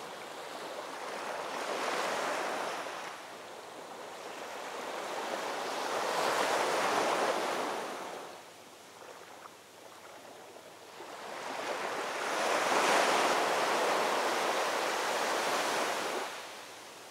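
Ocean surf: waves breaking and washing in, three swells of hissing water that rise and fall away, the last one longest.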